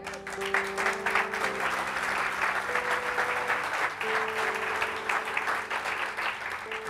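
Congregation applauding, dense clapping that thins out near the end, over slow, held chords of background music.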